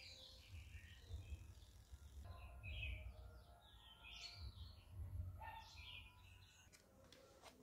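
Faint background birdsong: small birds chirping in short, repeated clusters over a low rumble. A couple of faint clicks near the end.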